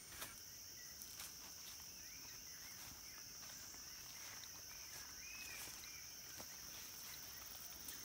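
Steady, faint high-pitched drone of an insect chorus, with a few sharp footstep clicks on the path and faint chirping calls in the middle.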